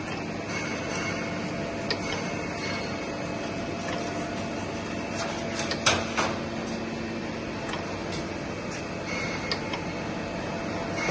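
Co-Meta Mini 600/250 cylindrical grinding machine running with a steady mechanical hum and whine, with a few sharp clicks and knocks, the loudest pair about six seconds in.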